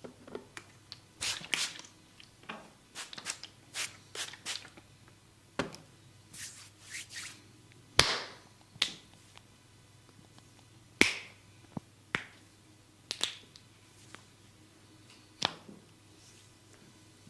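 A barber's hands working on a client's head and hair during a massage: irregular sharp snaps and clicks with short rustles between them, the loudest snaps about 8 and 11 seconds in.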